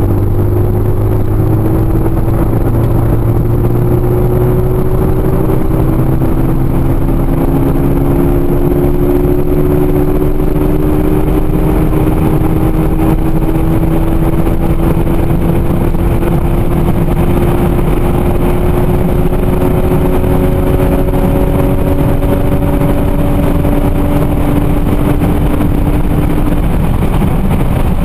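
Peugeot RCZ R's 1.6-litre turbocharged four-cylinder engine heard from inside the cabin, pulling hard at full throttle in one gear. Its pitch climbs slowly and evenly as the car accelerates from about 115 to 225 km/h, with no gear change.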